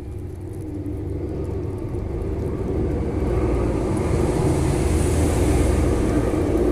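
A low rumble that grows louder over about the first three seconds, then holds steady.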